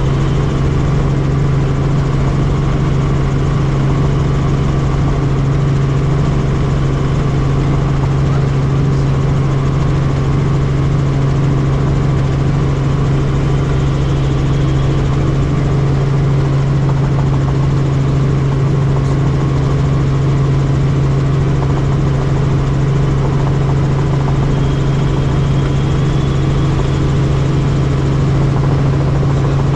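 Helicopter in flight: a loud, steady rotor and engine noise with a strong low hum that does not change.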